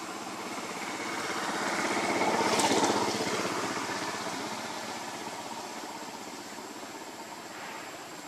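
A small engine passing by, swelling to its loudest about two and a half seconds in and then slowly fading.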